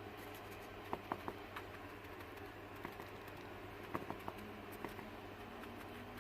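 Small scattered taps and rustles of sawdust being scooped and pushed down into the cups of a cardboard egg box, in two short clusters about a second in and about four seconds in, over a faint steady hum.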